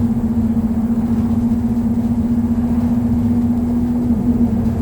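Cabin sound of an ADL Enviro200 single-deck bus on the move: a steady low rumble with a constant hum or whine over it, which wavers briefly near the end.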